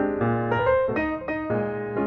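Jazz piano background music: a solo piano playing chords over a low bass line, the notes changing every half second or so.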